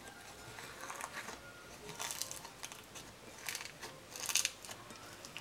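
White fluffy slime squeezed and kneaded by hand, giving irregular soft crackles and pops, the loudest a little past four seconds in.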